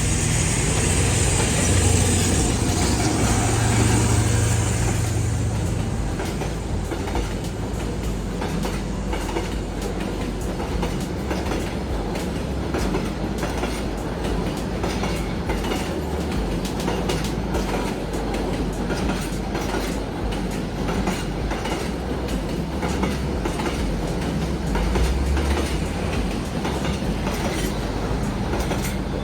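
Diesel-hauled train rolling along the track: loudest over the first few seconds with a low engine hum, then a steady rumble of cars with repeated clicks of wheels over the rails.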